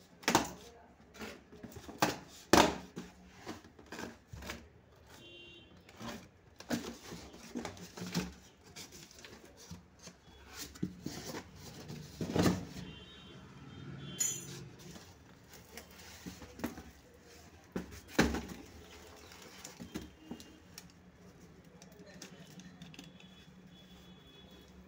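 A cardboard box is torn open by hand, the packing tape and cardboard ripping, and then plastic supplement tubs are handled inside it. The tubs knock and rub in irregular sharp clicks and thuds, a few of them much louder than the rest.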